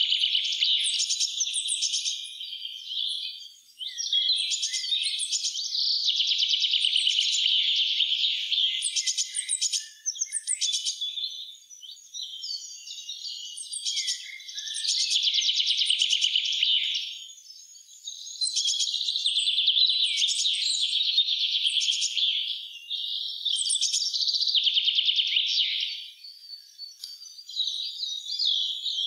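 Songbirds singing in a spring forest: fast, high-pitched song phrases lasting a few seconds each, overlapping and separated by short pauses.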